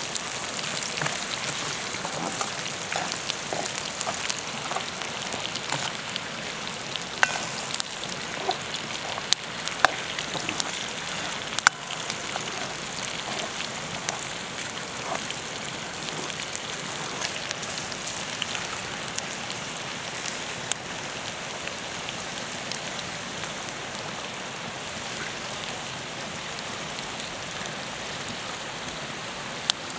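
Food frying in hot oil in a wok: a steady sizzling hiss dotted with small pops and crackles, with a few sharper clicks in the first half.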